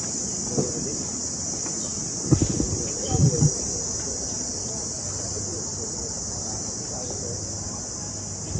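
Steady high-pitched drone of a chorus of insects shrilling without pause, with a few brief low bumps around two and three seconds in.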